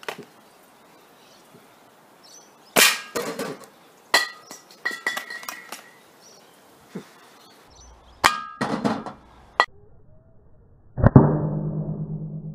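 Sharp metallic clicks and clanks from a Gecado Model 35 .177 air rifle being readied and fired, the loudest about three seconds in and again about eight seconds in. About eleven seconds in comes a heavy hit with a low ringing that slowly fades, as the pellet strikes the empty steel butane gas cylinder.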